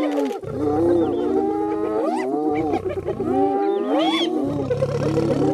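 A pack of spotted hyenas calling together, many overlapping whoops, yelps and giggles rising and falling in pitch, with low growling underneath at times.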